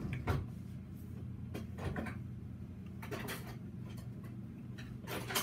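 Household kitchen sounds: a few scattered knocks and clatters, the loudest near the end, over a steady low hum.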